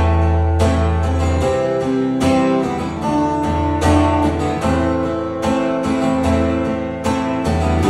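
Acoustic guitar strumming a steady rhythm, with a harmonica playing held notes over it in an instrumental passage of a country-rock song.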